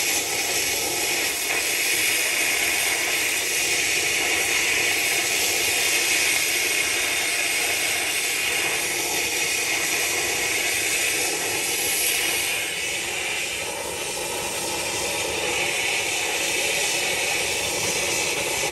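Arcair Slice exothermic cutting rod burning in an oxygen stream, a loud steady hiss as it lances through a seized steel pin in an excavator bucket. It stops abruptly at the end.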